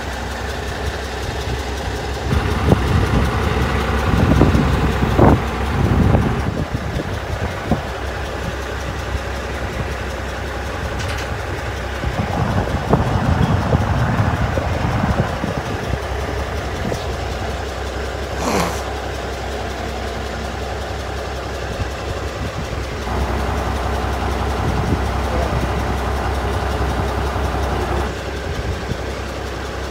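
Grapple truck's engine idling steadily, picking up in several louder stretches, the longest near the end. A single short, sharp sound cuts in about two-thirds of the way through.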